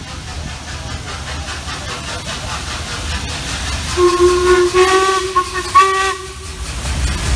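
Steam locomotive 46233 'Duchess of Sutherland', an LMS Princess Coronation class four-cylinder Pacific, approaches with its exhaust beats growing louder. From about four seconds in it sounds its whistle in a few short blasts.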